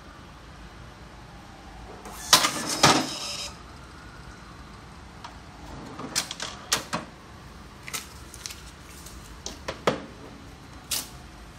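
Thermal receipt printers printing tickets in a short loud clattering run about two seconds in, with sharp clicks. Then come scattered clicks and paper rustles as a receipt is torn off and handled.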